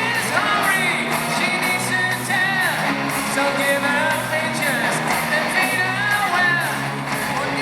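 Live hard rock music played loud by a full band at a concert, with singing.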